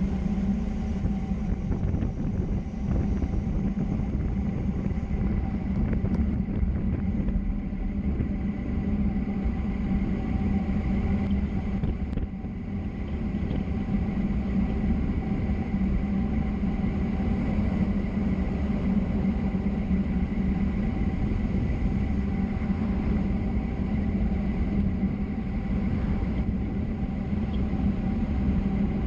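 A motor vehicle running steadily at an even engine speed, with a constant low hum and continuous road noise; it dips slightly quieter about twelve seconds in.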